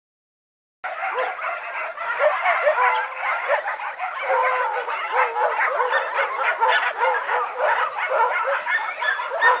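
Many shelter dogs barking and yelping together, a dense overlapping chorus that starts abruptly about a second in and keeps on without a break.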